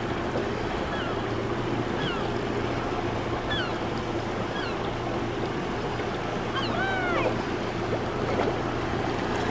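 A boat's engine running with a steady low hum over wind and water noise. Short falling bird calls repeat throughout, and a longer, fuller call comes about seven seconds in.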